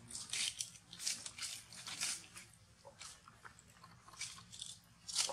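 A long-tailed macaque chewing something crunchy: a quick run of crisp crunches that thins out after about two and a half seconds, with a sharper click near the end.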